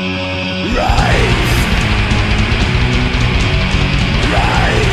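Heavy metal music: a lighter guitar passage breaks about a second in into the full band with distorted guitars and drums. A sliding note swoops up and back down twice.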